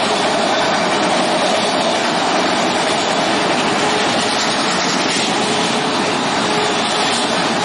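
Empty intermodal well cars of a freight train rolling past, a loud, steady noise of wheels on rail and rattling cars.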